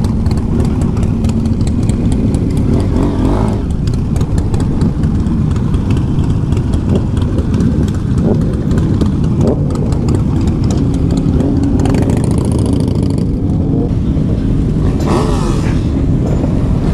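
Motorcycle engine running steadily while riding, with a constant rush of road and wind noise. The sound brightens briefly twice, about twelve and fifteen seconds in.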